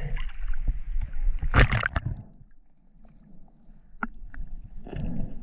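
Stream water sloshing and splashing, with a loud splash about a second and a half in, then a quieter stretch and a single click.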